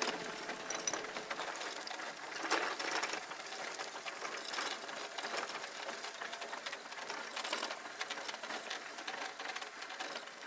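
Power wheelchair rolling along a gravel road: a steady crackle of small clicks and rattles.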